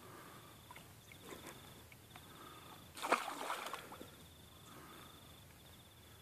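A small fish on a fishing line splashing into the water and thrashing at the surface, a brief splash about three seconds in that is the loudest sound. Around it, faint scattered water sounds and a faint high insect trill that repeats in short pulses.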